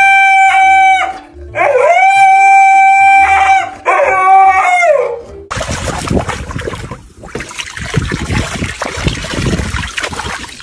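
A dog howling in long, high, held notes: three howls in the first five seconds, each sliding up at the start and down at the end, the last one shorter. Then loud, scratchy noise for the rest.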